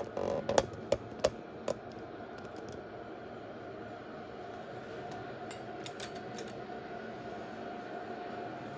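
Steady stadium crowd noise under a football broadcast, with a handful of sharp clicks in the first two seconds.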